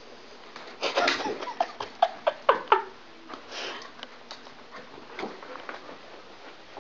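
Young dogs play-fighting over a ring frisbee: a burst of scuffling, then about five short, high yaps in quick succession, each falling in pitch, followed by fainter scuffling.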